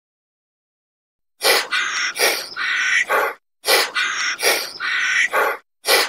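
An animal call, bird-like, made of about four rough notes. The same two-second phrase repeats three times with short gaps, starting about a second and a half in.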